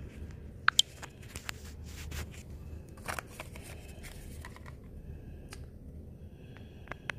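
Irregular clicks and rustles of cosmetic packaging being handled: plastic product tubes and a small cardboard box being moved about and lifted out of a cardboard subscription box. Two sharp clicks come about a second in.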